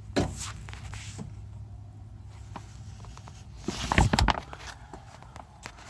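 Several knocks and clicks, the loudest a quick cluster about four seconds in, over a low steady hum.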